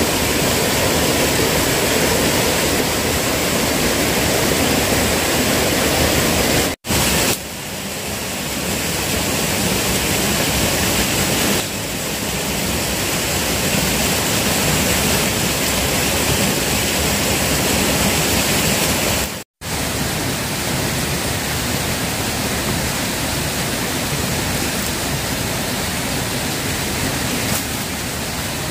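Steady rushing of stream water, cutting out briefly twice.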